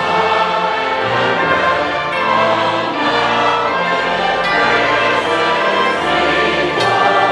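Large choir and orchestra performing a choral work live: sustained chords over a bass line that moves about once a second.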